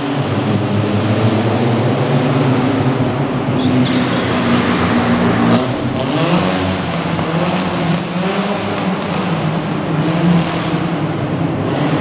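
Classic rally car's engine revving hard while drifting, its pitch rising and falling repeatedly through the turns, with a few short sharp bursts on the throttle changes.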